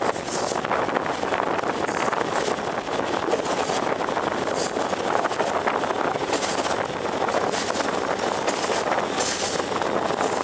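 Sri Lanka Railways Class S11 diesel multiple unit running along the line, heard from its open doorway: a steady rush of wheel-on-rail and running noise, with short hissy flickers every second or two.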